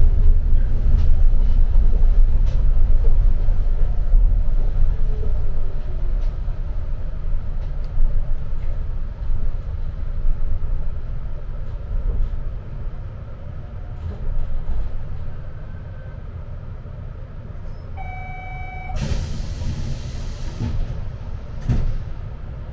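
Rokko Liner rubber-tyred automated people-mover running with a low rumble that fades as the car slows. About eighteen seconds in comes a short electronic chime, then a hiss of released air lasting about two seconds.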